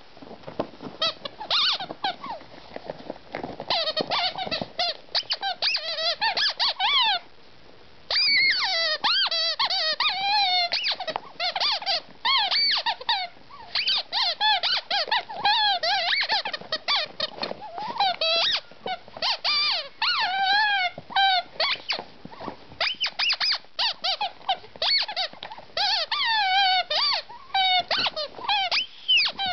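Rubber squeaky chimp toy squeezed over and over in quick runs of short squeaks, each wavering up and down in pitch, as a shih tzu tussles with it; the squeaking stops for about a second roughly a quarter of the way in.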